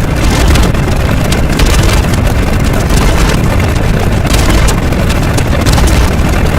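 Loud, steady, bass-heavy rumbling noise with fast crackles throughout.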